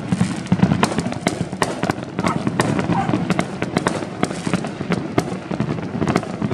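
Fireworks and firecrackers going off all around: a dense, irregular run of sharp bangs and pops over a steady low rumble of more distant explosions.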